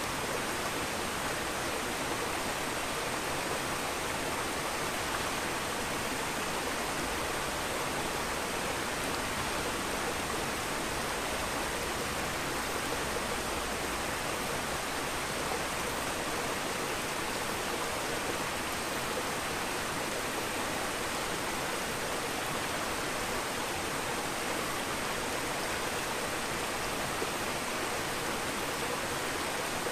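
Aquarium water and air bubbles: a steady rushing hiss of bubbling water, with a faint high steady tone above it.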